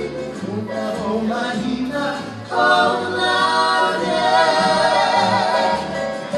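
Live Hawaiian song for hula sung by a group of voices together, growing louder and fuller about two and a half seconds in.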